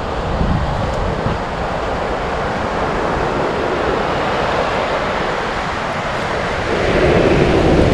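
Surf washing onto a sandy beach, with wind buffeting the microphone as a low rumble. The wash swells louder near the end.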